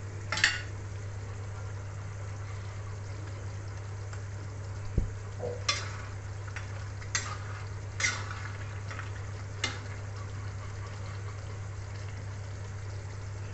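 A metal spatula stirs a simmering chicken curry in a metal kadai, scraping and clinking against the pan about five times over a steady low hum and a faint sizzle.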